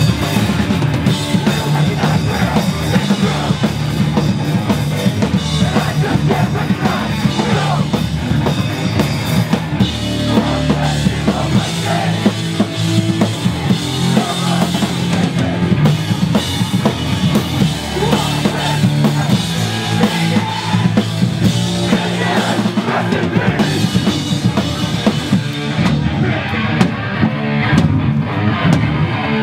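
Live hardcore band playing at full volume: distorted electric guitar and bass over a pounding drum kit.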